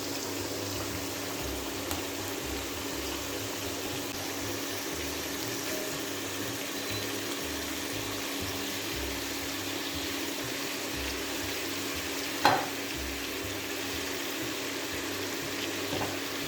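Squid pieces sizzling steadily in hot olive oil in a pan, with one sharp knock about twelve seconds in.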